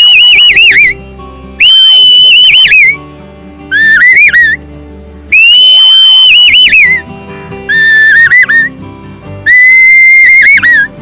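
A man whistling bird-call imitations: six loud calls, each holding a high, piercing note before breaking into a wavering warble at the end. Quiet background music plays underneath.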